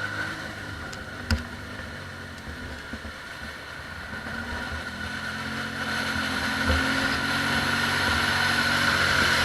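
ATV engine running steadily, growing louder through the second half as the quad comes closer, with a single sharp knock about a second in.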